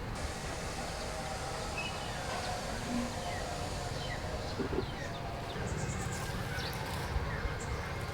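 Steady background hiss with faint, scattered bird chirps and a few light clicks.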